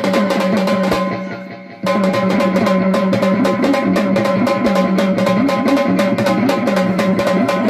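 Dance music with fast, steady drumming over held tones. It fades away about a second in, then starts again abruptly just before two seconds and runs on.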